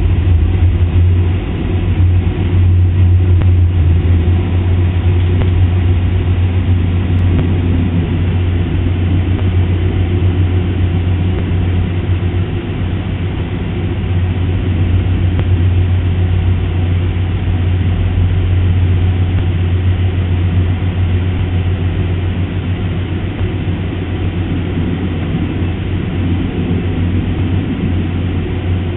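Boeing 747-400 cabin noise: a steady, loud low drone of the jet engines and airflow heard from inside the cabin.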